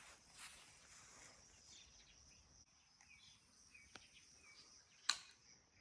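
Faint bush ambience: a steady high insect trill sets in about two seconds in, with a few short chirps over it and one sharp click about five seconds in.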